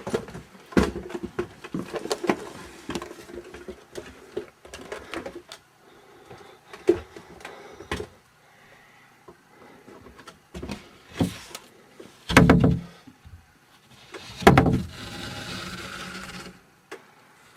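Indoor knocks, bumps and handling noise as someone moves about a room, with two heavy thumps near the end, the second followed by a short rustle.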